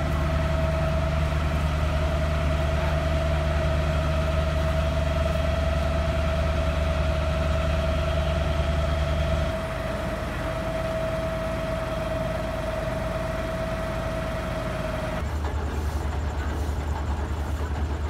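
A heavy engine idling steadily, with a steady whine above it. The low rumble drops away about halfway through, and near the end the whine stops and the rumble comes back.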